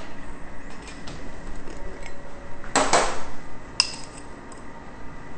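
Kitchen utensils being handled while sugar is measured out: a few light clicks, a short scrape or rustle about three seconds in, then a single metallic clink with a brief ring.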